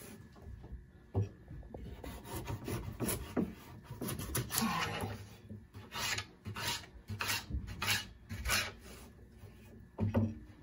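Kitchen knife slicing raw carrots on a plastic cutting board: an irregular run of cutting strokes, about two a second, each a short crunch of the blade through the carrot onto the board.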